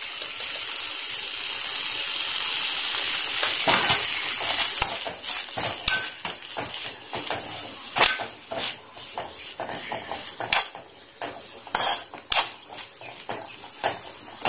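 Moringa leaves frying in a stainless steel pan, a steady sizzle for the first four seconds or so, then a spatula scraping and knocking against the pan as the greens are stirred.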